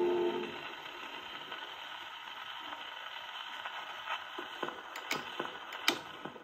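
The last of the song fades out on a His Master's Voice wind-up portable gramophone playing a 78 rpm shellac record, leaving the needle's surface hiss and crackle. Sharp clicks come more often near the end as the needle nears the label, the end of the record.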